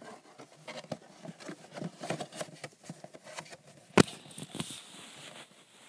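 Hands handling a small homemade paper toy house: light rustling and small taps and clicks, with one sharp knock about four seconds in.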